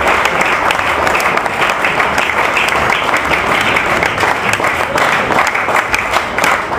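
Audience applauding: dense, steady clapping from a full hall.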